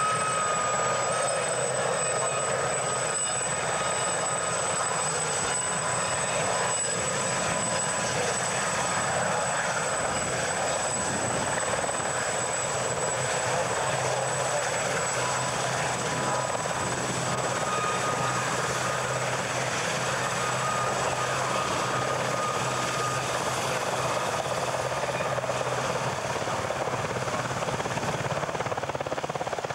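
Westland Sea King helicopter hovering, its main rotor and engines giving a steady noise that holds level throughout.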